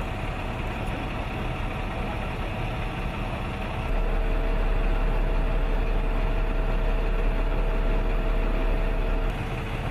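Fuel truck's engine and fuel pump running steadily during refuelling. It gets louder, with a strong steady low hum, from about four seconds in until shortly before the end.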